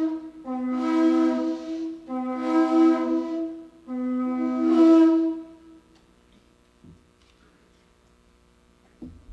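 A wind instrument plays three short phrases, each stepping up from a lower note to a higher one, then stops about halfway through. Two faint knocks follow.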